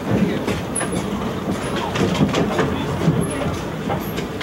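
Ride noise of a narrow-gauge passenger car behind a steam locomotive: a steady rumble and clatter of wheels and car body, with irregular clicks and knocks over the rail joints. A few brief high squeaks cut through it.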